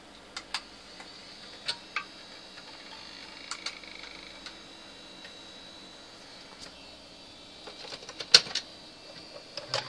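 Amiga 500's built-in floppy drive clicking in short pairs with no disk in it, as it does while the machine waits at the insert-disk screen. About eight seconds in, a floppy disk is pushed into the drive with a cluster of louder clicks and clunks, and a few more clicks come near the end.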